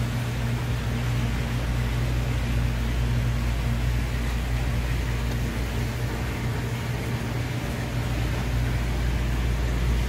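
A machine's steady low hum with an even hiss over it, like a fan or compressor running.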